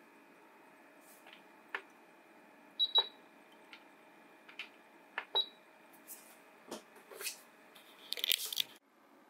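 Plastic button clicks on an Asakuki essential oil diffuser's control panel, with two short high beeps as the unit responds to presses. A brief rustling noise near the end.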